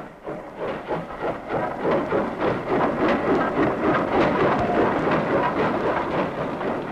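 Steam locomotive and its freight train running over a steel girder bridge: a rumbling clatter of wheels on rail that swells over the first couple of seconds as the engine comes close and passes, then carries on as the wagons roll by.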